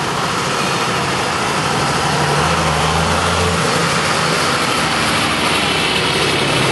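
Street traffic: a motor vehicle's engine running steadily at idle over a constant wash of road noise, its low hum swelling briefly about halfway through.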